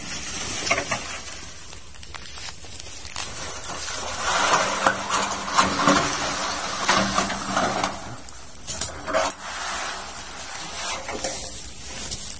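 Dry grass, vines and dead leaves rustling and crackling as brush is poked and pushed aside with a stick. The rustling grows louder about four seconds in and eases off again after a few seconds.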